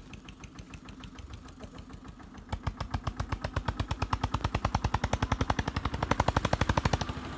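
Tractor engine running with a fast, even beat of about ten pulses a second, which comes in much louder about two and a half seconds in and keeps growing louder.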